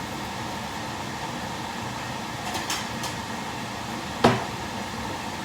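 Kitchen utensils handled against cookware: a few light clicks, then one sharp clink with a short ring about four seconds in, over a steady background hum.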